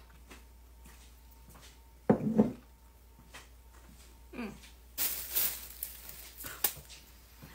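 Mouth and chewing noises of someone eating sauced chicken feet with chopsticks, with two short low hums, a second-long noisy stretch about five seconds in, and a few light clicks.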